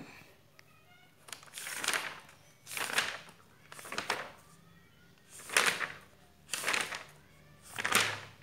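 Pages of a paperback school workbook being leafed through by hand: six quick rustling page turns, roughly a second apart.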